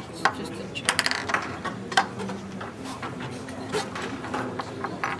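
Chess pieces clicking as they are picked up and set down on the board in quick moves, several sharp clicks with the loudest about one and two seconds in.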